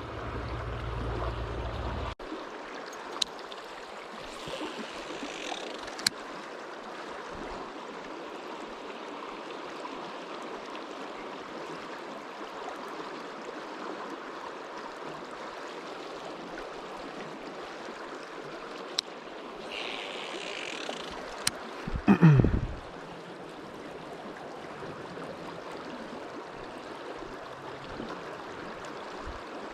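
Fast river current rushing steadily over rocks. A few sharp clicks come through, and a brief loud sound falling in pitch comes about two-thirds of the way in.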